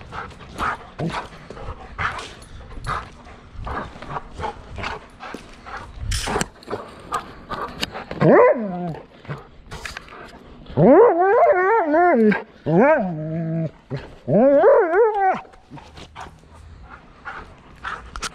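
German shorthaired pointer whining and yowling in about four long, wavering cries in the second half, the longest lasting over a second. Before them come scattered short clicks and taps.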